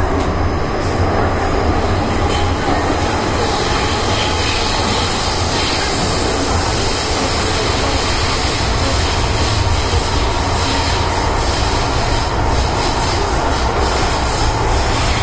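Interior running noise of an MTR M-Train (Metro-Cammell) subway car moving at speed through a tunnel. A loud, steady low rumble with wheel-on-rail noise holds without a break.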